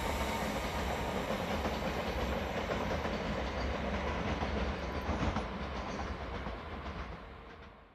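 BLS double-deck electric multiple unit running away along the station tracks, a steady rumble with a few wheel clacks over the rails, growing fainter as it recedes; the sound fades out completely near the end.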